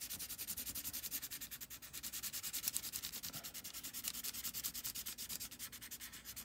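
Graphite pencil scribbled rapidly back and forth over the back of tracing paper, a steady rubbing hiss in quick, even strokes: the drawing's back is being coated with graphite so it can be transferred onto a stone.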